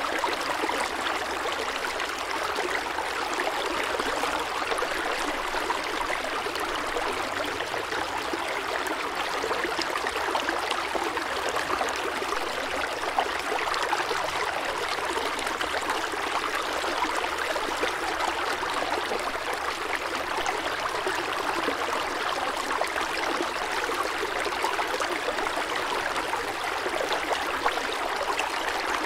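Steady rushing water, an even hiss with no swells or breaks.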